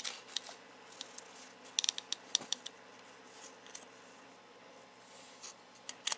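Small metallic clicks and light scrapes of a steel caliper being handled and its sliding jaw moved while measuring a wheel bolt. A quick cluster of sharp ticks comes about two seconds in, and a few more near the end.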